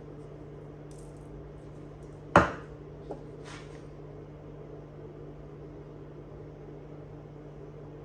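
Salt shaker shaken briefly, then one sharp knock about two and a half seconds in as the shaker is set down on a hard surface, with a lighter click just after. A steady low hum runs underneath.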